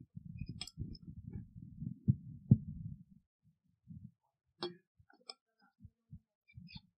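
Handling noise from a metal water bottle close to a desk microphone: irregular low thudding and rumbling for the first few seconds, then scattered short clicks and knocks as the bottle is drunk from and closed.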